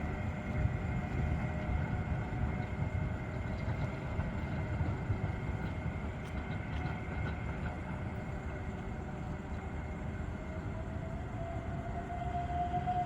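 A motor vehicle running close by in street traffic: a steady low rumble with a faint electric-motor-like whine, which grows louder and rises slightly in pitch near the end.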